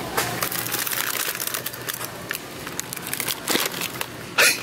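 Plastic-wrapped Oreo cookie packs crinkling and crackling as they are handled and gathered up, with a louder crinkle near the end.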